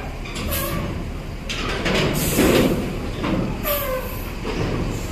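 Large diesel buses running, with a loud hiss of released compressed air, typical of bus air brakes or air doors, about two seconds in. A few brief pitched squeaks come near the end.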